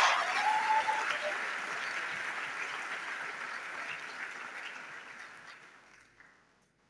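Audience applauding, fading away after about six seconds.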